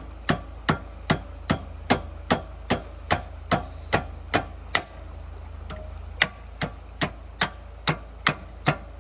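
Hand hammer striking a makeshift iron pin in an excavator's bucket linkage, driving it home. It gives a steady run of sharp metal-on-metal strikes, about two and a half a second, with a pause of about a second and a half just past the middle. A steady low hum runs underneath.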